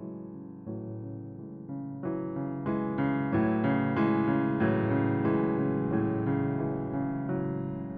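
Slow instrumental piano music, with new notes struck every half second to second over sustained chords, growing fuller and louder about two seconds in.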